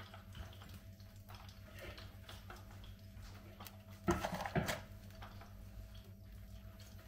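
Tongs setting a battered fried chicken tender down onto fries in a cardboard tray: a short clatter and rustle about four seconds in. A steady low hum and faint small ticks run underneath.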